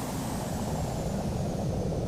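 Airbus A319 jet engines: a steady low rumble of engine noise with a thin high whine that slowly falls in pitch.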